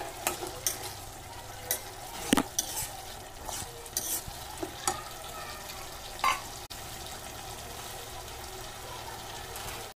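Metal spoon stirring chickpeas into frying masala in a kadhai: a steady low sizzle with scattered clinks and scrapes of the spoon against the pan, the sharpest about two and a half seconds in.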